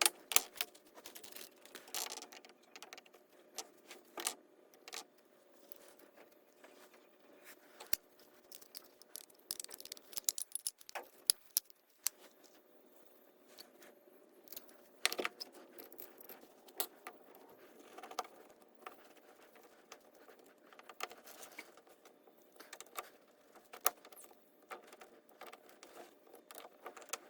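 Light metallic clicks and taps at irregular intervals as small parts of a Holley 2280 two-barrel carburetor are handled and fitted during reassembly, over a faint steady hum.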